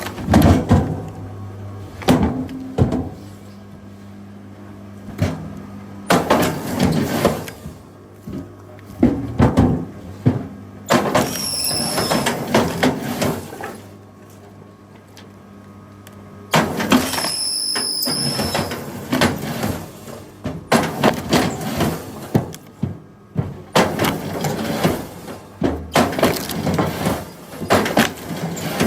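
Firewood logs being split and broken apart: repeated knocks with wood cracking and splintering, and a few longer stretches of grinding, tearing wood, over a steady low hum.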